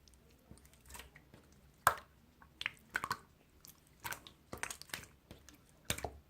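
Chewing something crunchy, with about a dozen irregular crunches and bites, the loudest about two seconds in.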